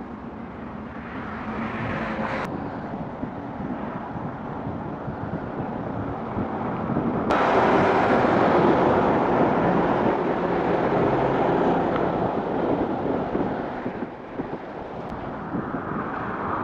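Road traffic noise: a rushing sound of passing vehicles that swells, jumps louder about seven seconds in, and dips briefly near the end.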